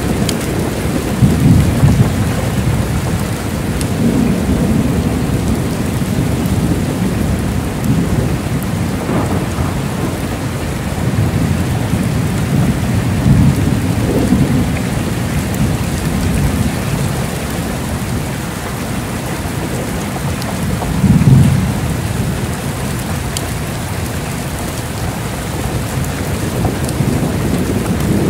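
Heavy rain pouring steadily, with low rolling thunder swelling up several times; the loudest rumbles come near the start, about halfway through and about three quarters of the way in.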